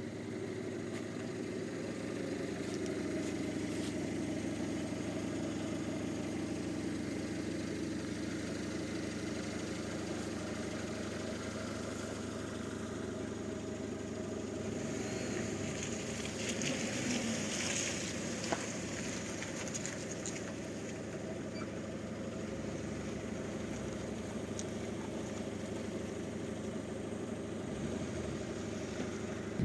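Car engine running steadily, a low even hum with a brief rise in hiss about halfway through.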